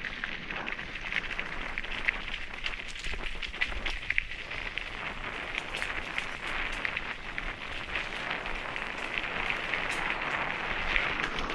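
Mountain bike tyres rolling over a loose gravel track: a steady crackling crunch with many small clicks of stones.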